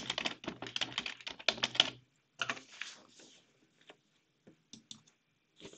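Typing on a computer keyboard: a quick run of keystrokes for about two seconds, a short burst a moment later, then a few scattered single clicks.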